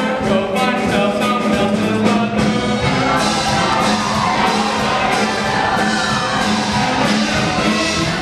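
Live show choir singing a pop number with a backing band of drums and brass. About three seconds in, the full choir joins the lead singers and the sound fills out.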